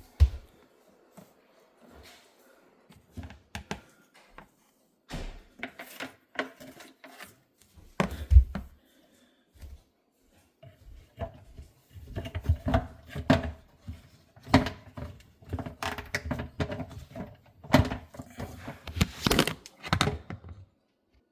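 Plastic parts of a Samsung dishwasher's filter and sump assembly knocking and clicking as they are handled and fitted back together: scattered thunks at first, then a busier run of clatter in the second half.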